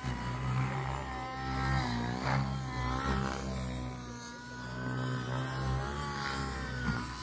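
SAB Goblin RAW 700 nitro RC helicopter in flight: its two-stroke glow engine whines over the steady hum of the rotors. The engine pitch rises and falls as the helicopter manoeuvres.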